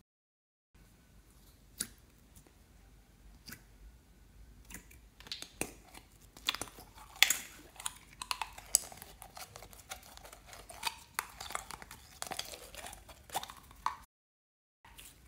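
Clear jelly slime being squeezed and worked out of a thin plastic cup by hand: sticky squelches and crackling clicks, a few at first, then coming thick and fast for several seconds. The sound drops out twice, briefly, at edit cuts.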